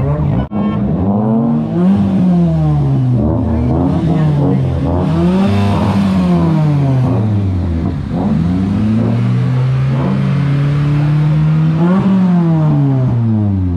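Modified Mitsubishi Cedia's engine revved up and down repeatedly while standing, its pitch climbing and falling about six times, roughly every two seconds.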